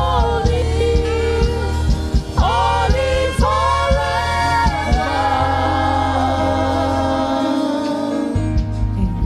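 Gospel praise music: voices singing long, gliding phrases over a band with a steady bass line and drum beat. The bass drops out briefly near the end.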